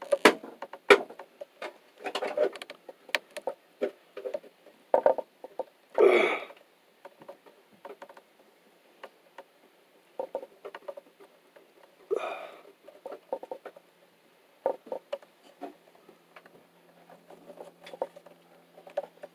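Scattered clicks, taps and rustles of hands working electrical wires and twisting a plastic wire nut onto a splice, with two longer rustles along the way. A faint low hum comes in near the end.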